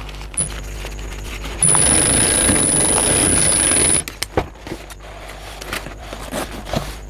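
Primex high-speed industrial sewing machine running in one short stitching burst of about two and a half seconds, with a steady high whine, starting and stopping abruptly. Before and after it there are light clicks and rustling of the bag's nylon fabric being handled.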